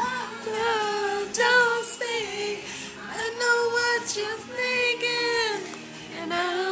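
A song with a high voice singing long, wavering notes over backing music.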